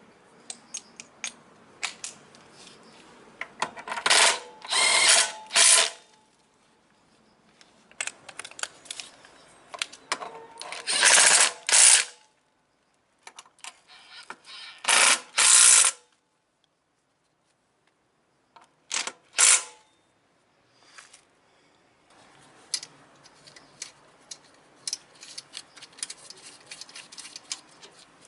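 Tool work on a scooter's rear brake: four loud runs of ratcheting or motor-driven tool noise, each about one to two seconds long, with scattered sharp metal clicks and taps between them.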